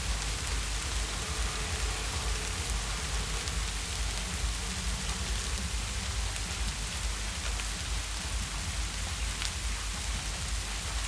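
Heavy rain falling steadily: a dense, even hiss with many individual drops ticking through it and a low rumble underneath.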